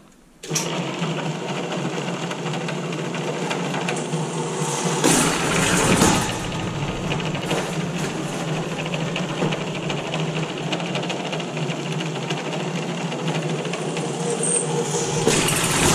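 Drill press running and drilling holes through thin galvanized sheet steel, a steady motor hum with the bit's cutting noise. It starts about half a second in and gets louder for a moment around five to six seconds in.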